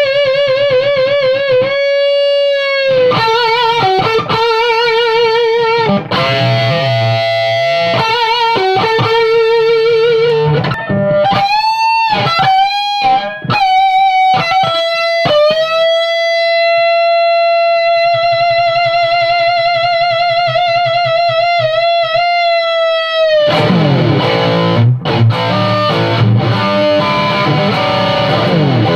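Distorted electric guitar played through a Crate Vintage 60 amp rebuilt as a high-gain amp. It plays a lead line with wide vibrato on held notes, including one long sustained note past the middle, then switches to heavy, low distorted rhythm chords in the last few seconds.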